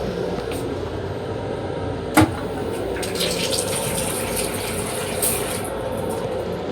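Water running from the restroom sink faucet in a moving M7 railcar, over the steady rumble of the train, with one sharp click about two seconds in.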